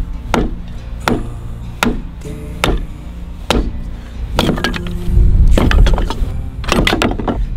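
Sharp, wooden-sounding strikes repeated about once every three-quarters of a second, over background music, with a loud low rumble about five seconds in.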